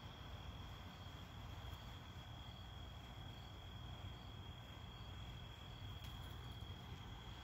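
Crickets trilling in one steady, unbroken high-pitched note, with a fainter chirp above it repeating about three times every two seconds, over a low steady rumble.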